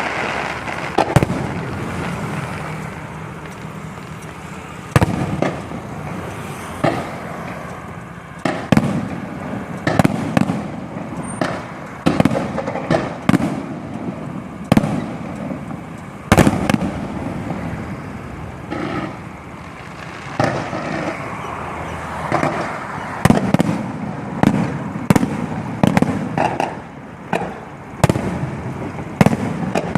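Electronically fired aerial fireworks show: shells bursting with sharp bangs about every one to two seconds, with crackling and rumble in between.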